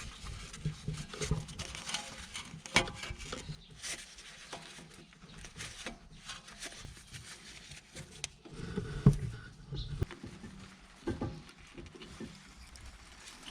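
Scattered clicks, taps and knocks of hand tools and parts being handled during brake work, with a sharper knock about three seconds in and a heavier thud about nine seconds in.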